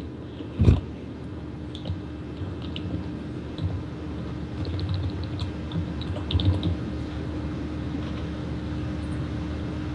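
Light typing and clicking on a computer keyboard in two short stretches, over a steady low hum, with a single thump about a second in.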